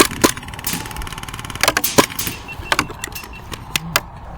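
Airsoft gunfire: about a dozen sharp single cracks at irregular intervals, with a fast full-auto rattle in the first second and a half.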